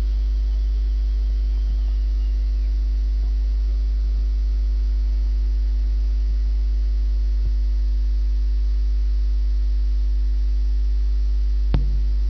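Loud, steady electrical mains hum with a faint buzz of higher overtones, unchanging throughout, with a single click near the end.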